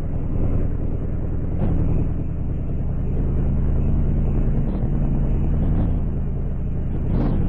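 A steady, loud, low rumble like a running engine, with brief louder swells about a second and a half in, near five seconds, and near the end.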